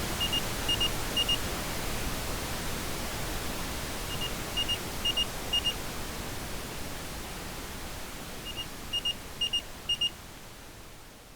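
Steady pink noise, slowly fading, with an electronic alarm beeping over it. The alarm comes in three bursts about four seconds apart, each burst four quick high double beeps.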